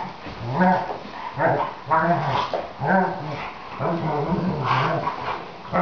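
Young Dobermanns growling and whining in a run of short calls, about one every half second to second, while they play-fight.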